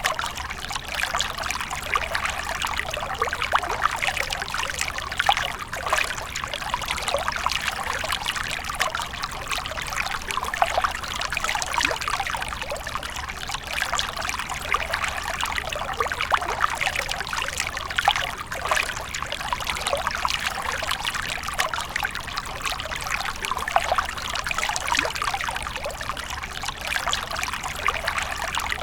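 Water from a fountain splashing and trickling steadily, a continuous patter of small splashes.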